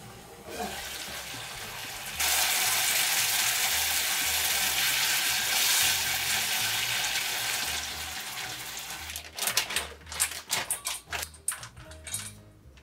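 Spicy braised potatoes simmering down in a thick sauce, a loud steady sizzle from about two seconds in that fades near the two-thirds mark. Then comes a quick run of sharp snips from kitchen scissors cutting dried shredded squid in a stainless steel bowl.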